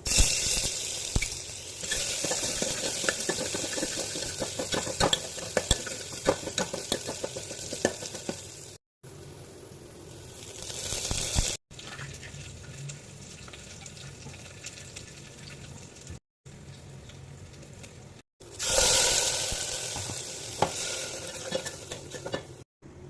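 Food frying in hot oil in a pan: steady sizzling with many small pops and stirring, broken by several abrupt cuts. A fresh loud burst of sizzling about three-quarters of the way through fades down.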